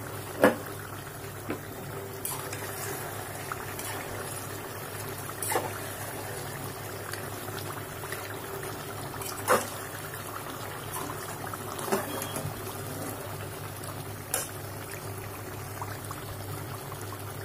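Chicken curry bubbling in its own juices in an aluminium pot while a metal spatula stirs it. A few sharp knocks come as the spatula hits the pot.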